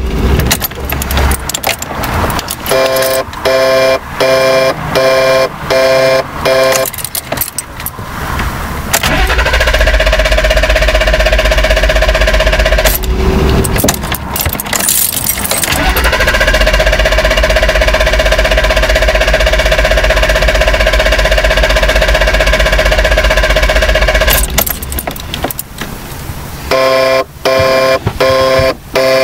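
Starter cranking the BMW E34 520i's straight-six in two long attempts that do not catch, the engine refusing to restart after stalling. Between the attempts there is a tone pulsing about once a second.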